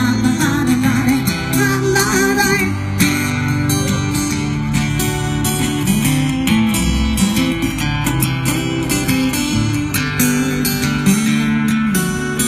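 Live band music: a guitar-led instrumental passage with no words sung.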